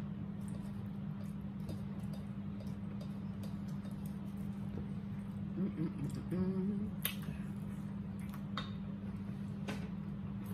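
Close-up mukbang eating sounds of fried chicken: soft chewing and mouth noises with a few sharp clicks of fork and fingers on the plates, over a steady low hum.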